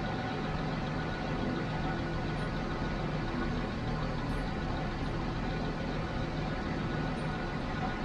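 Jaguar XJ6 Series 3's fuel-injected 4.2-litre straight-six idling steadily. This engine has a rough-idle fault, which the owner says runs smooth for about a minute after starting before going uneven.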